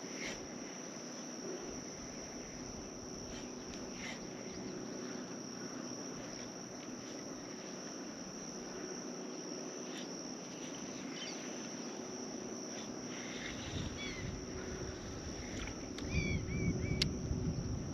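Steady high-pitched insect drone, with a few faint clicks and short chirps. Low rumbling wind noise on the microphone picks up near the end.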